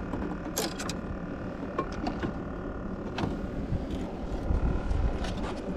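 Scattered sharp clicks and knocks, about six in all, from handling the catch and gear in a small boat, over a steady low rumble that swells briefly near the end.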